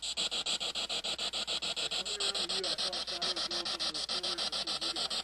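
Spirit box radio sweeping through stations: a rapid, even chopping of static, several cuts a second, with faint fragments of broadcast voice from about two seconds in.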